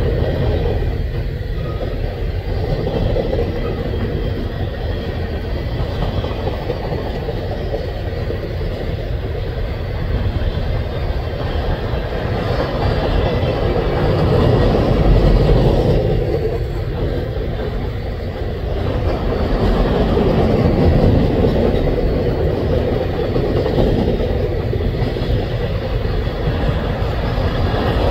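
Covered hopper cars of a freight train rolling past: the steady rumble and rattle of steel wheels on the rails, swelling and easing every few seconds.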